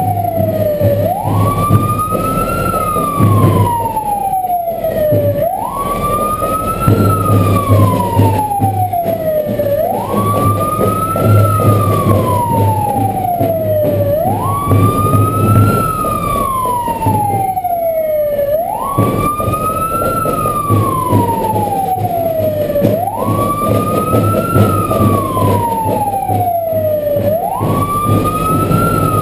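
A wailing siren: each cycle rises quickly in pitch, then falls slowly, repeating about every four and a half seconds, about seven times. Underneath is a steady rumble of engine and road noise.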